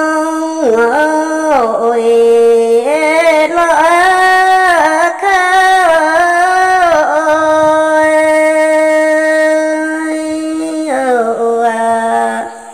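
A woman singing a Red Dao lượn folk song unaccompanied, in long held notes that bend and slide between pitches. The phrase fades out near the end.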